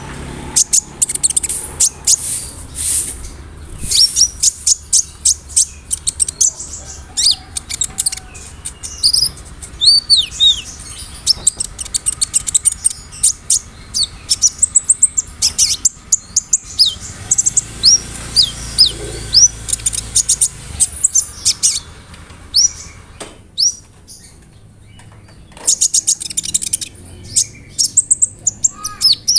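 Kolibri ninja (konin) sunbird singing: a fast, rattling run of sharp high chirps and short downward-sweeping whistles, breaking off briefly about three quarters of the way through before resuming.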